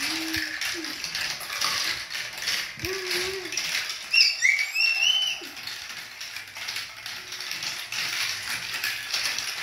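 Marble Genius marble run with its chain elevators running: a continuous rapid clicking and rattling of the plastic chain links and marbles clattering along the plastic tracks. A few brief high squeaks come about four seconds in.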